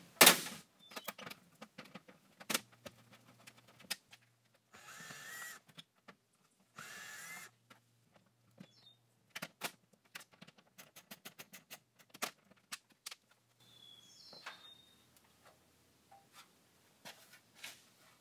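Hand ratcheting socket wrench clicking in short runs as screws are backed out of a freezer's sheet-metal top cover. Two brief whirring bursts come about five and seven seconds in.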